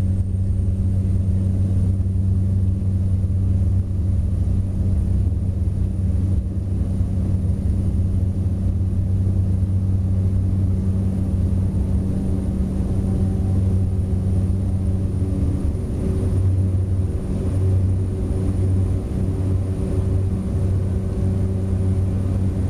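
Cessna 208 Grand Caravan's single Pratt & Whitney PT6A turboprop engine and propeller running, heard from inside the cabin: a steady, loud low propeller drone with a thin, high turbine whine above it.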